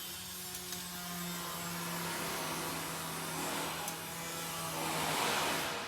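Hot calamansi brew being poured from the pot into a mug: a liquid rushing noise that swells near the end, over a steady low hum that stops just before it.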